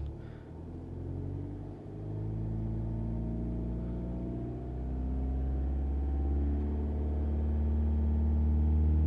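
VW Passat 2.0 TDI four-cylinder turbo-diesel engine being revved slowly and steadily from about 1000 toward 2500 RPM, its pitch rising gradually as it gets louder, heard from inside the cabin. This is the held-rpm step of a scan-tool-commanded diesel particulate filter (DPF) regeneration.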